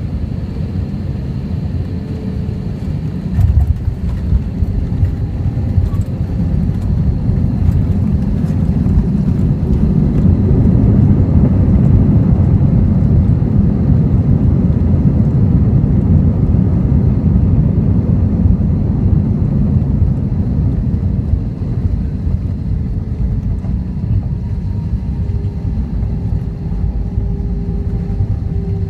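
Cabin sound of an Airbus A319 landing. There is a thump about three and a half seconds in as the wheels touch down, with a few rattles just after it. Then comes a loud rumble of the roll-out that swells to its loudest around the middle as the plane brakes, and eases off toward the end.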